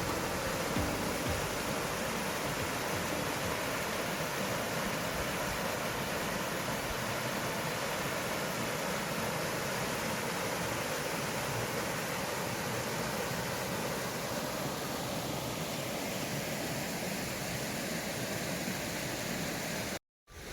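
Mountain stream flowing steadily over rocks, an even watery hiss with no change. It cuts off suddenly near the end.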